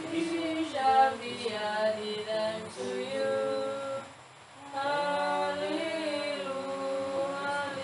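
A small group singing a hymn unaccompanied, with a short break between phrases about four seconds in.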